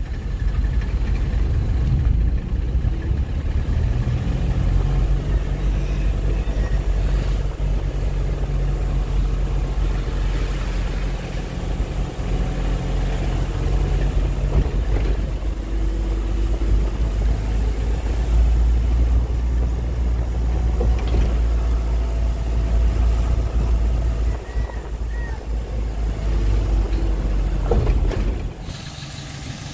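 An engine running steadily while under way, a low drone that drops away shortly before the end.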